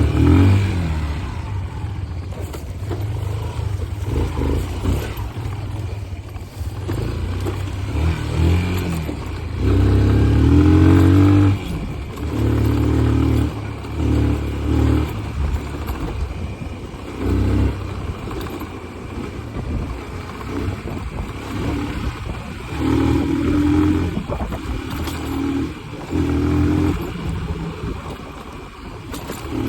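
An engine running, with repeated louder surges every few seconds.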